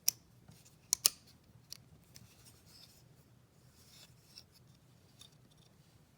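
SQT 2048 multitool being worked by hand, its fold-out tools clicking as they are opened and closed. There is one sharp click just after the start and two close together about a second in, then lighter clicks and rubbing of metal as the tool is handled.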